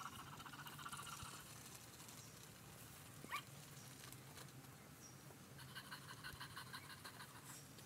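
Faint whirring and rapid clicking of a battery-operated walking toy dog's small motor and gears, heard in two short stretches.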